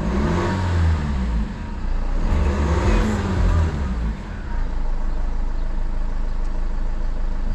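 BMW M47 four-cylinder diesel running at idle with the revs surging up and falling back twice, then settling to a rougher, steadier run. The hunting idle is the fault being shown: the engine revs up hard by itself and sometimes dies, with a boost pressure sensor fault code that the owner found was not the sensor.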